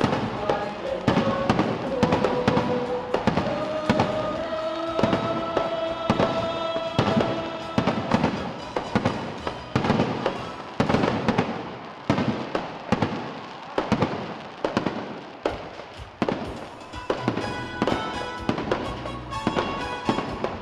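Aerial firework shells bursting in a rapid series of sharp bangs, several a second, over music playing underneath.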